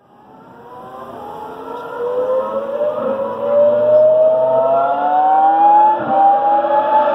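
Formula 1 V10 engine at high revs, fading in and rising steadily in pitch as the car accelerates, with a brief dip about six seconds in.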